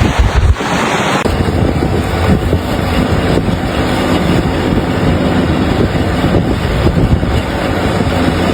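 Steady vehicle rumble mixed with wind blowing on the microphone. There is a change in the sound about a second in, where the gusting noise gives way to a more even engine-and-road drone.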